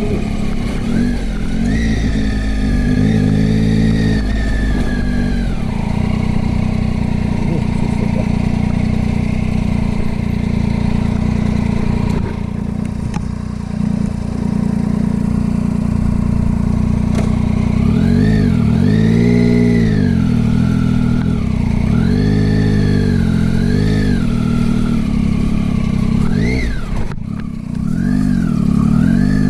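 Motorcycle engine running under way, its revs rising and falling with the throttle. The pitch holds fairly steady through the middle, then the revs go up and down in quick repeated swells near the end.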